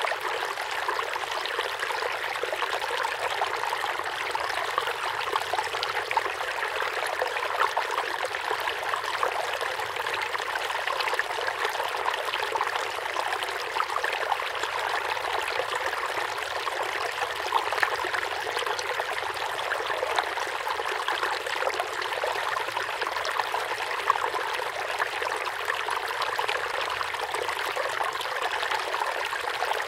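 Water steadily trickling and splashing into a tub of fish, a constant run of small splashes without a break.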